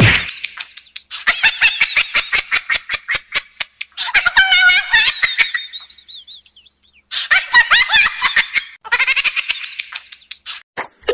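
A high-pitched, rapidly pulsing comic sound effect of quick squeaky chirps, in several bursts with short gaps between.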